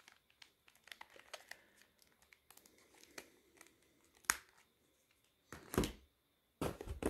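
Old plastic flip phones being handled: small clicks, taps and rustles as a closed phone is turned over in the hands, with one sharper click a little past the middle. Louder clattering near the end as a phone is picked out of a pile of other phones.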